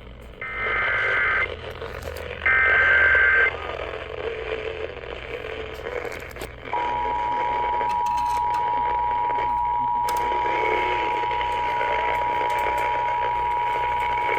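Emergency Alert System signal received over radio: two short bursts of warbling digital data tones (the SAME header), then a few seconds later the steady two-tone attention signal starts and holds. It heralds a new severe thunderstorm warning.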